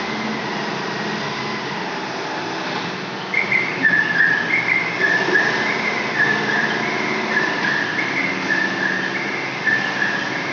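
Large forklift's engine running steadily. From about three seconds in, its warning beeper sounds repeatedly, in short beeps alternating between a higher and a lower note.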